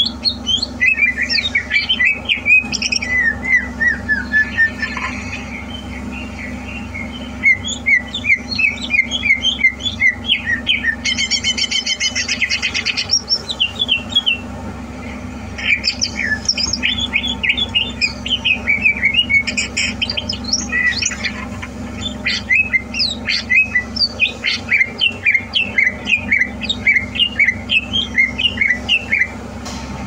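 Greater green leafbird (cucak hijau) singing in long runs of quick, varied chirps and whistles. Short pauses fall between phrases, and a harsh buzzy trill comes about halfway through, all over a steady low hum.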